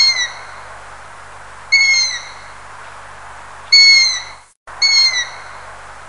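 Long-eared owl calling: four short, squeaky calls that each slide down in pitch, spaced one to two seconds apart, over the steady hiss of a field recording. The recording drops out for a moment just before the fourth call.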